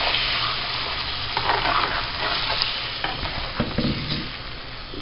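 Green salsa sizzling as it hits the hot pork and fat in a clay cazuela, while a metal spoon stirs it; the sizzle slowly dies down, with a few knocks of the spoon against the pot a little past the middle.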